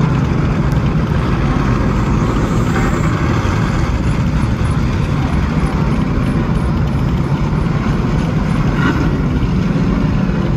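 Stock car race car engines running at low speed, a steady loud rumble.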